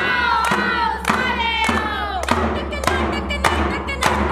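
A group of women singing together to a steady beat of hand claps and a frame drum, two to three strokes a second. The singing drops away about two seconds in while the claps and drum carry on.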